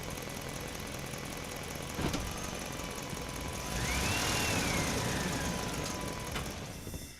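A truck driving through a parking structure, its engine running under steady road noise. There is a sharp knock about two seconds in, and a louder passage near the middle with a squeal that rises and then falls in pitch. The sound fades and cuts off at the end.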